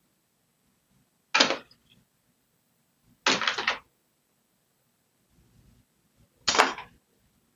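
Three short clatters of printer-kit parts and packaging being handled and set down: one about a second and a half in, a longer rattling one around three seconds in, and a third near the end.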